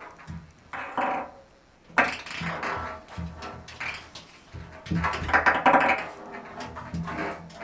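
Ping pong ball rolling and bouncing in a bathtub as a cat bats it: irregular clattering runs with sharp clicks, the sharpest about two seconds in, and a short lull just before it.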